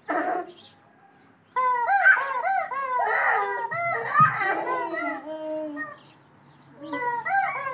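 Rubber chicken squeeze toy squawking in runs of short rising-and-falling honks as it is squeezed over and over, with a pause of about a second before a final run near the end.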